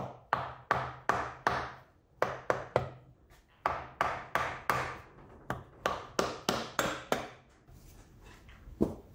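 Rubber mallet tapping the head (tappet) cover of a Kawasaki ZXR400 four-cylinder engine to work it loose from the cylinder head: about twenty dull knocks, roughly three a second, in uneven runs with short pauses.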